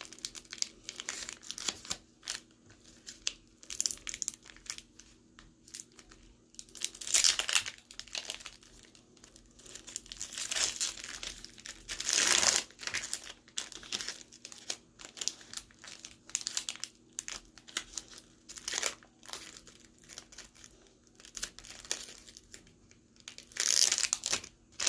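Foil wrapper of a Pokémon card booster pack crinkling as it is handled and torn open, in irregular bursts, the loudest a little past a third of the way in and around the middle.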